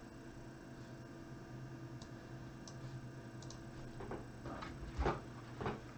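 Scattered computer mouse and keyboard clicks over a steady low hum. A few louder taps and knocks come in the last two seconds.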